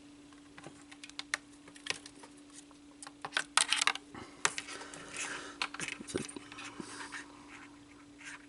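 Small model-kit parts, the lightsaber storage tube and ejector mechanism, handled and fitted together: scattered light clicks, taps and rustles, busiest about halfway through, over a faint steady hum.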